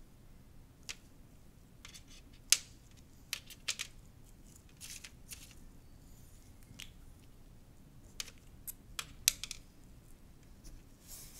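Gloved hands handling paper cups, a wet canvas and a disposable aluminium foil tray: scattered light clicks and taps, the sharpest about two and a half seconds in, with a few short scrapes.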